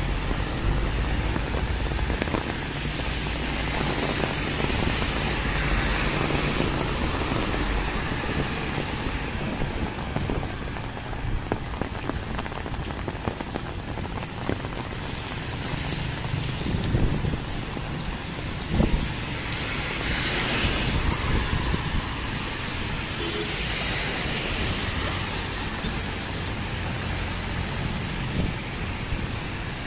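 Heavy rain falling steadily and pattering on the road and nearby surfaces, with the hiss of vehicles passing on the wet highway swelling up twice in the second half. A couple of sharp taps stand out near the middle.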